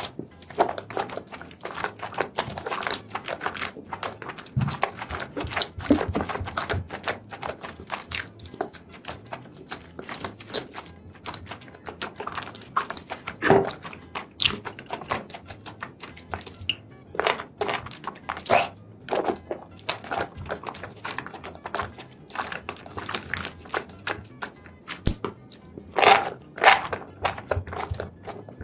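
Close-miked mukbang eating sounds: wet smacking, chewing and biting into sauce-coated seafood, a steady run of irregular clicks and squelches, with a few louder bites about 13 seconds in and again near the end.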